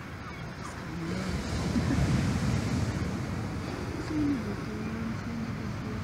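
Wind buffeting the microphone: a steady low rumble, with a few faint short tones about a second in and again after about four seconds.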